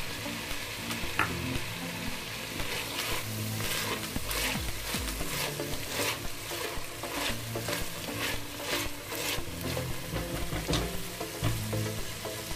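Diced onion, celery and carrot sizzling in butter and oil in an enamelled pot, stirred with a spatula: a steady sizzle with a run of scraping stir strokes through the middle.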